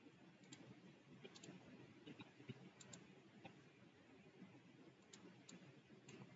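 Faint, scattered clicks of a computer mouse, several in quick pairs, over a near-silent room hiss.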